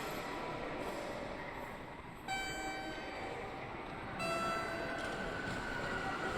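A two-note station chime, higher note then lower, the notes about two seconds apart and each ringing out over about a second. Steady rail-yard background noise runs underneath.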